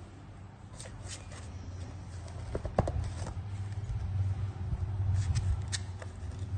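Paper gift bag rustling and crackling as a Pomeranian puppy shifts about inside it, with a scatter of sharp crinkles over a low rumble.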